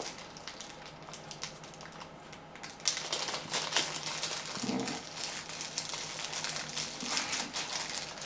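Hands handling a replacement rechargeable battery pack at a workbench: a quiet stretch, then a run of light clicks and crinkling rustles from about three seconds in.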